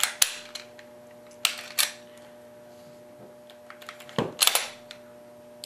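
Sharp metal clicks and clacks of an M&P pistol's slide being fitted back onto the frame and run along its rails: a few clicks at the start, two more about a second and a half in, and a quick cluster of clacks near the end. A faint steady hum runs underneath.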